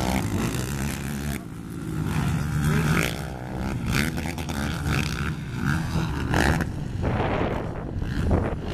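Racing ATV quad engines revving up and backing off repeatedly, their pitch rising and falling as more than one quad runs the track.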